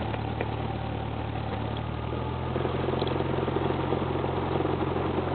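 Cessna 172R Skyhawk's four-cylinder Lycoming IO-360 engine running at low taxi power, heard from inside the cabin. About halfway through, the engine note grows a little louder as power is added.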